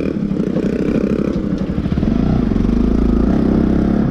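Bajaj Pulsar NS200's single-cylinder engine running steadily under way on a rough dirt track, getting louder about two seconds in as the throttle opens.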